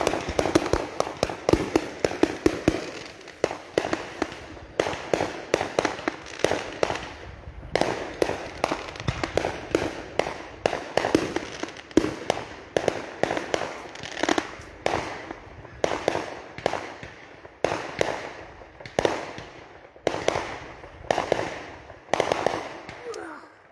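Fireworks going off in a rapid string of sharp bangs, several a second, each cracking and fading quickly.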